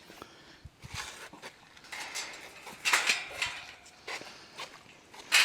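Metal wire dog-pen panels clinking and scraping as they are handled and joined together, in a few short, irregular bursts, the loudest about three seconds in.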